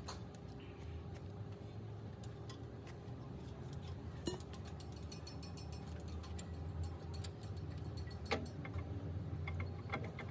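Light metallic clicking and ticking of tools and parts being handled, over a steady low hum, with a sharper knock about four seconds in and another just past eight seconds.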